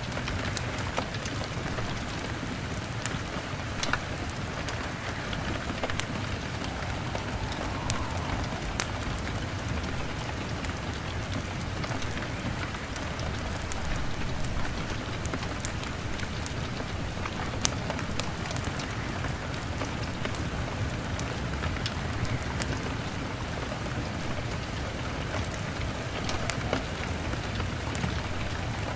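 Steady rain on a window pane, with a log fire crackling in scattered sharp ticks and pops over the even hiss.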